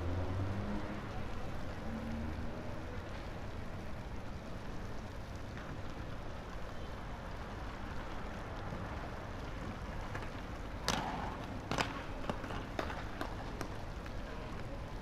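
Skate park ambience: a steady rolling rumble of skateboard wheels on concrete, with two sharp board clacks about eleven and twelve seconds in and a few lighter clicks after them.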